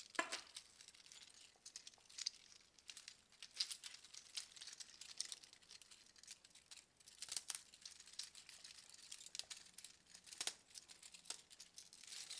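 3D-printed plastic Hoberman sphere links clicking and rattling as they are handled and pushed together, a scatter of light clicks with a few sharper ones.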